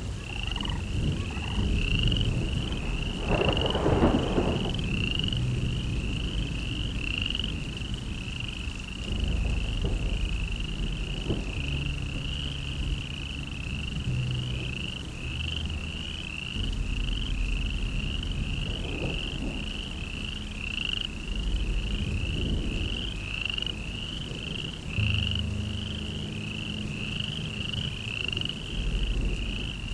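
High, short rising chirps repeating about twice a second in an unbroken train, in the manner of calling frogs, over a low rumble.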